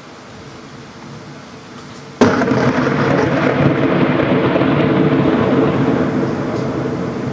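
Close thunderclap over heavy rain: a sudden sharp crack about two seconds in, followed by a loud rumble that slowly fades.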